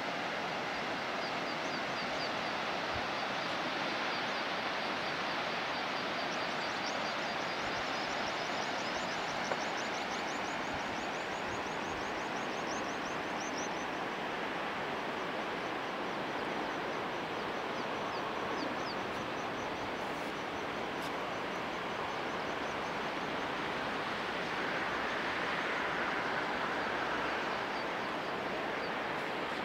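Open-air mountain ambience: a steady rushing hiss, with a high, rapid chirping that runs for several seconds at a time over it.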